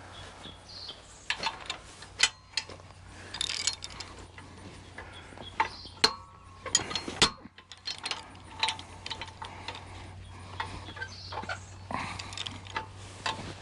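A ratchet wrench clicking in irregular spurts, with metal clinks and clanks, as a tight nut on a pull sprayer's boom fitting is worked loose.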